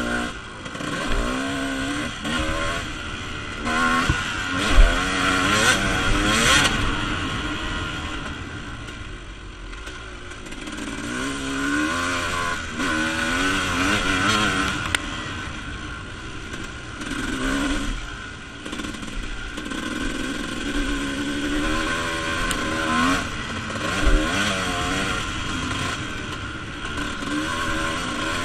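Dirt bike engine revving up and down over and over as it is ridden through the gears around a motocross track. Two sharp thumps stand out, one about five seconds in and another later on.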